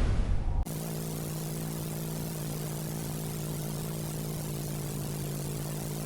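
A loud rushing noise fades out in the first half-second, then cuts to a steady low drone with a faint hiss.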